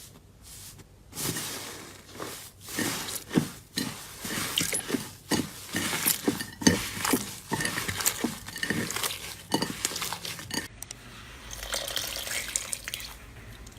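Slime being squeezed and worked by hand, giving a run of wet clicks and pops at irregular spacing. Near the end the texture changes to a finer, denser crackle.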